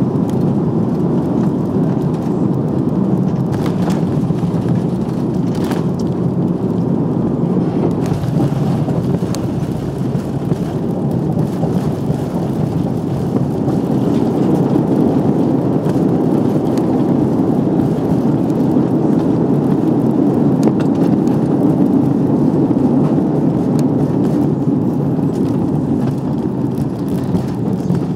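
Cabin noise of an Airbus A340-300 landing: a loud steady rumble of airflow, engines and landing gear as it touches down and rolls out, with a couple of sharp knocks a few seconds in. The rumble swells for a while past the middle as the ground spoilers are up and the airliner decelerates on the runway.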